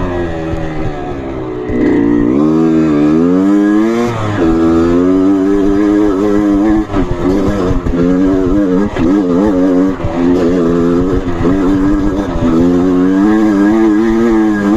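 Trail motorcycle engine revving up and down under changing throttle, its pitch rising and falling repeatedly.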